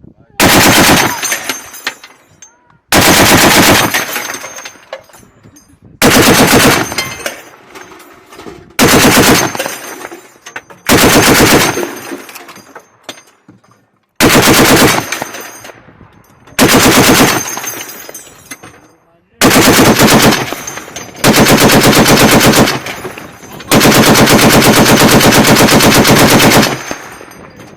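Crew-served belt-fed machine gun firing about ten short bursts of roughly a second each, with a longer burst of about three seconds near the end. Each burst echoes away before the next. The belts are short, 6 and 9 rounds, fed in by hand.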